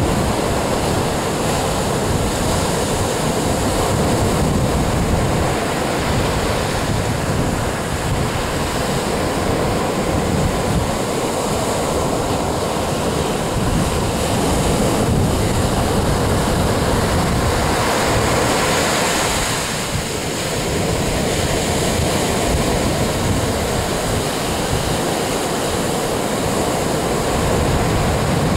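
Steady noise of ocean surf washing on the beach, mixed with wind buffeting the microphone.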